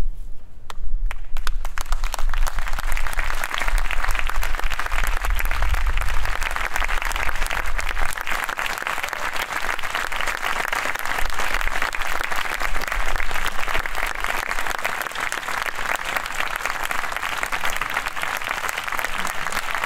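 Concert audience applauding, a dense, steady clapping with a low rumble under it for roughly the first half.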